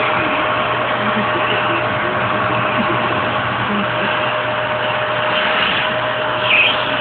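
Vacuum cleaner motor running steadily, a constant whirring hum with a steady tone.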